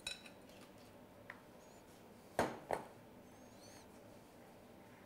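A metal fork clinks against a glass mixing bowl and a small aluminium mould as a chunky filling is scraped and pressed in. The loudest sounds are two sharp clinks in quick succession about halfway through, with lighter taps before them and a few faint high chirps in between.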